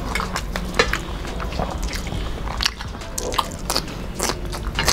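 Close-up eating sounds: chewing and biting with irregular crisp clicks, crunches and mouth smacks, including bites of raw cucumber.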